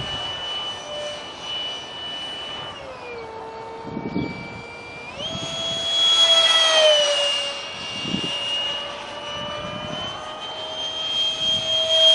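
A 70mm electric ducted fan (Detrum combo) on a foam RC jet whining in flight. Its pitch drops as the throttle is eased about three seconds in, then climbs back up about two seconds later and is loudest a second or so after that, as it passes close.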